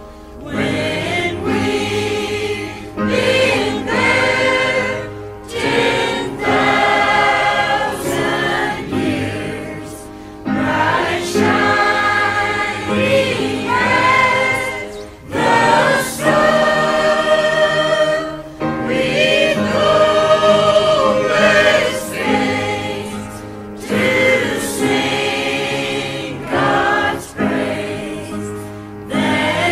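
Background music: a choir singing a gospel hymn in long held phrases, with short breaks every few seconds.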